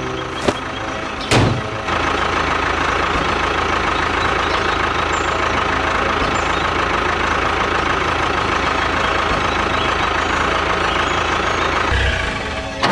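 A tractor-type engine runs steadily at idle with a low rumble, dying away near the end. Two short knocks come in the first two seconds.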